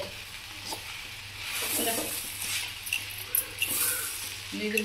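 Moringa leaf (murungai keerai) stir-fry being stirred with a steel spoon in a wide metal pan on the heat: a rustling sizzle as the leaves are turned over, with a few short ticks of the spoon against the pan.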